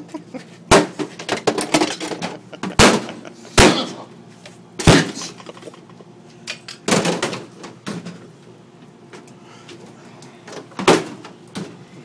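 A refrigerator being smashed with heavy blows: about six loud crashing strikes at uneven intervals, with smaller knocks and rattling between them.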